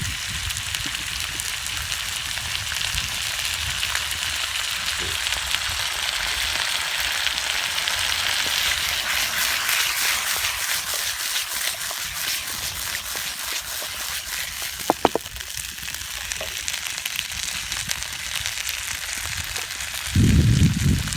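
Salmon and seasoning sauce sizzling in a frying pan during a stir-fry, a steady hiss with fine popping spatter that swells around the middle.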